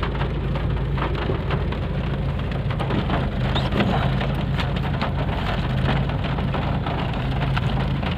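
Heavy rain drumming on a car's roof and windows, heard from inside the cabin as a dense, steady patter of countless drop hits. A steady low hum runs underneath.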